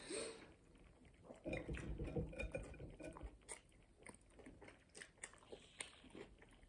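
Close-up chewing and biting of a pulled pork burger and chips, with small crunches and short mouth clicks. The fullest, loudest chewing comes from about one and a half to three seconds in.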